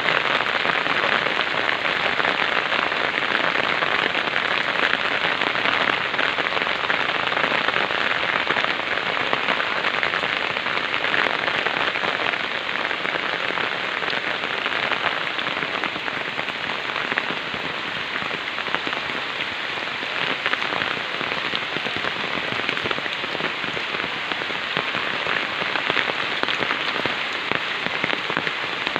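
Heavy rain pouring steadily, a dense even hiss with fine patter of drops hitting surfaces.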